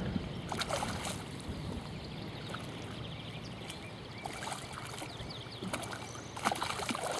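Shallow river water running over a gravel riffle, a steady wash. A few short sharp sounds stand out about half a second and a second in, and again near the end.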